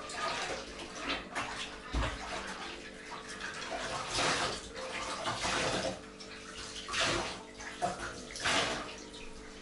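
Water sloshing and splashing in a metal basin as something is washed and wrung by hand, in irregular swishes, several of them louder.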